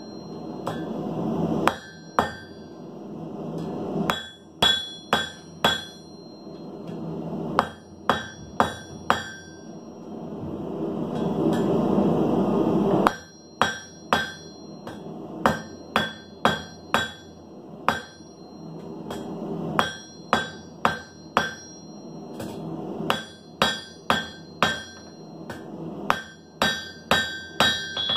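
Hand hammer striking a red-hot bar on an anvil in quick runs of ringing blows, about two a second, with short pauses between runs, as the bar is drawn out to a point. A rushing noise swells in the pauses, the longest pause about halfway through.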